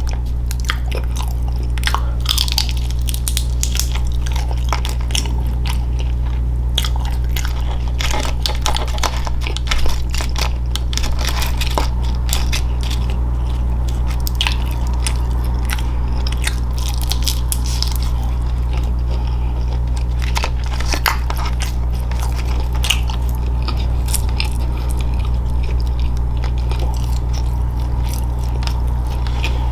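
Close-miked chewing and biting with crisp crunches and wet mouth clicks, a person eating at the microphone, over a steady low hum.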